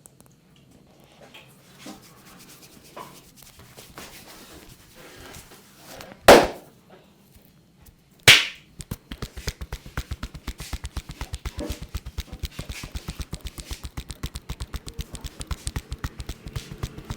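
A massage therapist's hands working on a client, with light rubbing at first. Then come two loud, sharp slaps about two seconds apart, followed by rapid, even percussive hand tapping at about five or six strikes a second.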